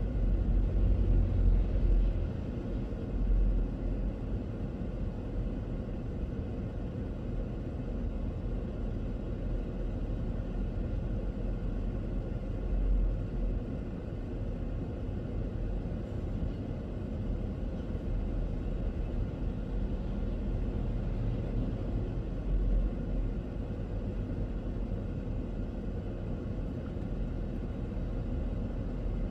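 Car driving, a steady low rumble of engine and road noise, louder in the first two seconds, with a few brief louder swells.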